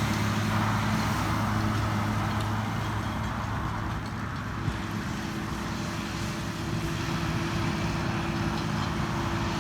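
A diesel engine running steadily, a low even hum with a light rushing noise over it.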